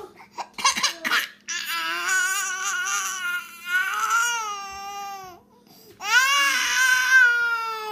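Baby girl crying after her twin takes her pacifier: a few short sobbing sounds, then long wailing cries, broken by a brief pause about five and a half seconds in.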